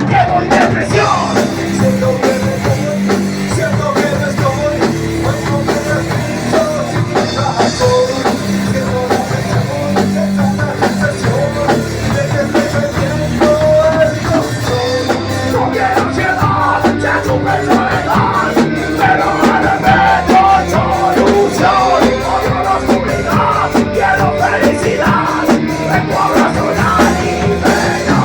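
Nu-metal band playing a song live in rehearsal, loud and dense with a drum kit and heavy rock instruments, recorded through a mobile phone's microphone.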